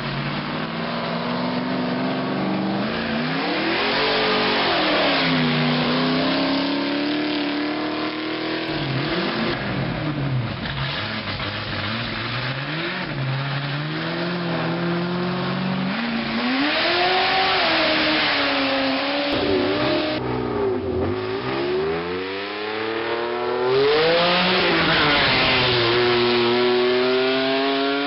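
Cars racing up a gravel hill-climb road, their engines revving hard, rising and falling in pitch again and again as the drivers shift gears. One car passes close near the end, the loudest moment.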